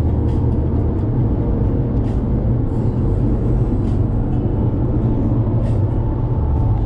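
Car driving along, a steady low rumble of road and engine noise.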